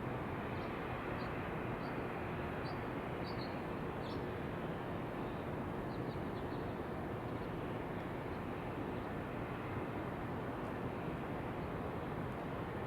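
Steady white-noise bed blended with wind, with small birds chirping briefly and faintly many times in the first half.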